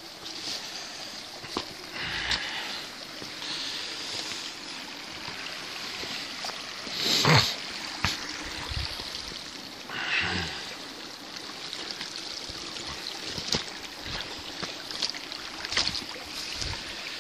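A small stream of water trickling and running along a muddy track, with footsteps on wet ground and a few bumps, the loudest about seven seconds in.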